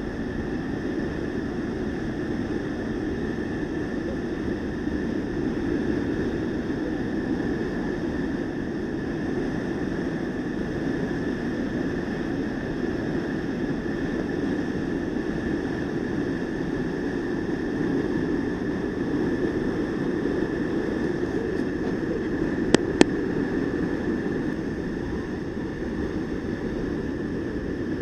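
Waterfall rushing steadily, a deep even roar of falling water, with two quick clicks about three quarters of the way through.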